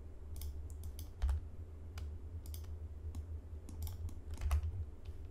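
Irregular clicks and taps of a computer keyboard and mouse, a few at a time, with a stronger click about a second in and a cluster near the end, over a steady low hum.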